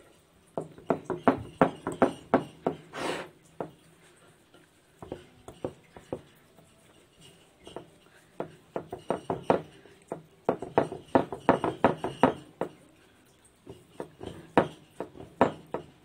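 Fingers patting and pressing warm semolina barfi flat into a plate: quick runs of soft taps, several a second, in bursts with short pauses between.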